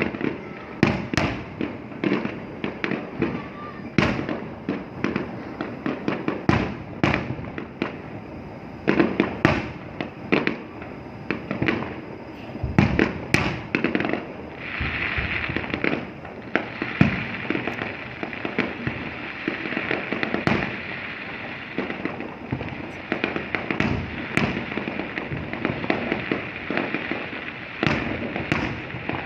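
Fireworks bursting, a dense, irregular run of sharp bangs, with a steady hiss joining about halfway through.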